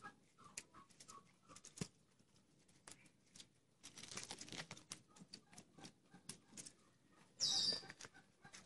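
Faint farmyard sounds: scattered small clicks and rustles with a few faint bird chirps, and one short, louder rustle about seven and a half seconds in.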